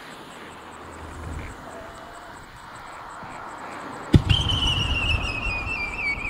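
Fireworks display: a low rumble, then about four seconds in a shell launches with a sharp bang and climbs with a loud whistle that falls steadily in pitch, over continued low rumbling.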